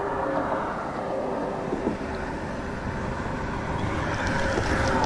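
Steady road-traffic rumble, growing a little louder near the end as a vehicle comes closer.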